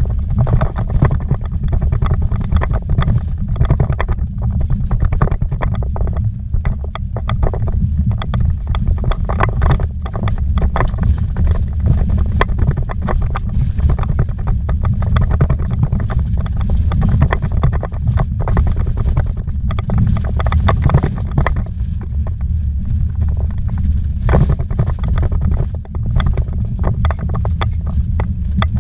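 Vehicle driving on a rough dirt track, heard from inside the cabin: a loud, steady low rumble with frequent short knocks and rattles.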